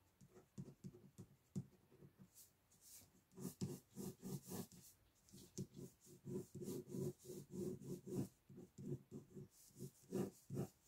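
Ink pen scratching on paper in many quick, short hatching strokes, faint, laying in tabby stripes on a sketch. The strokes come in clusters and grow busier after the first few seconds.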